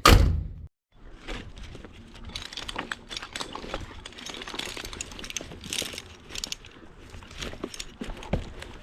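A loud knock at the very start, then irregular clicking, scraping and rustling: climbing spikes, rope and hardware working against pine bark as a climber moves up the trunk.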